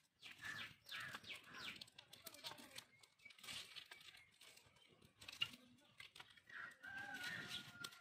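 Very quiet: faint ticking and rustling of dry sticks and palm fronds being pushed into a small wood fire, with one sharper tick about five and a half seconds in. A faint drawn-out bird call near the end.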